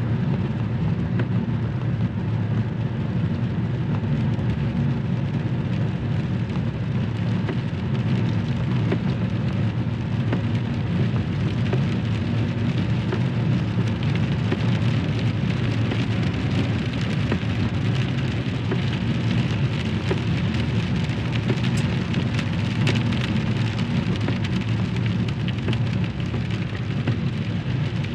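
Rain falling on a car, with many small drops ticking over a steady low rumble from the car driving.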